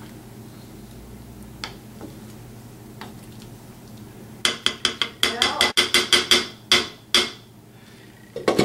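Wooden spoon knocking against a black enamel pot, a quick run of ringing knocks about six a second for nearly three seconds. Near the end, the pot's lid is set on with a clatter.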